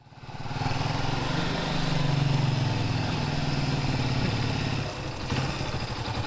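Small motorcycle engine running at low speed as the bike rides slowly up, fading in at the start. The steady low engine note drops slightly about five seconds in.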